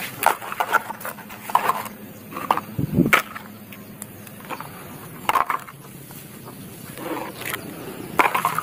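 Mud-coated plastic toys being picked up and dropped into a plastic crate: irregular knocks and clatter of plastic on plastic.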